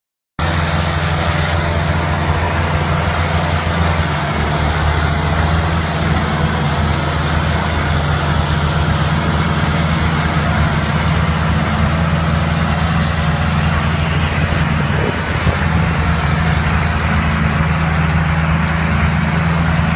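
Several diesel farm tractors running together under load as they pull a loaded sugarcane trolley: a loud, steady, deep engine drone that starts about half a second in.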